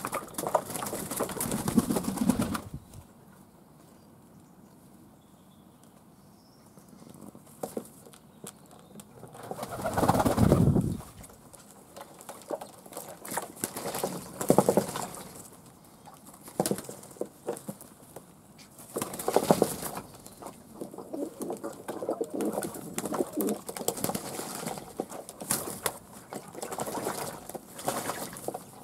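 Fantail pigeons cooing, with wings flapping and water splashing as they bathe in a tub of water; the sounds come and go in bursts, with a quieter lull a few seconds in.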